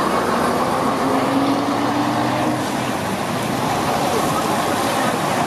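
Vintage bus driving past close by, its diesel engine running under steady road and traffic noise.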